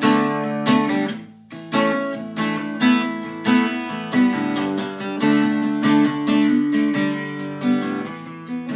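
Acoustic guitar strummed in a steady rhythm, each stroke's chord ringing on until the next.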